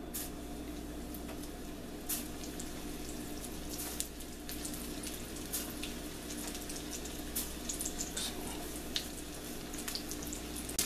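Starch-battered milkweed seedpods deep-frying in hot oil in a small pan: a steady sizzle with scattered sharp pops and crackles.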